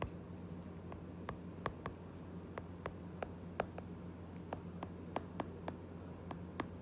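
Stylus tip tapping and clicking on a tablet's glass screen during handwriting: irregular sharp ticks, a few a second, over a faint steady hum.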